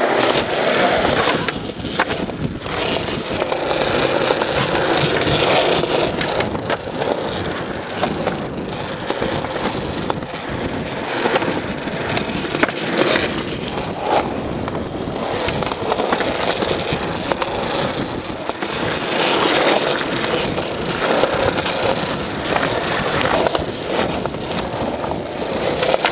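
Skateboard wheels rolling over smooth concrete with a steady rumble, broken by occasional sharp clacks of the board, with the board on a metal rail near the end.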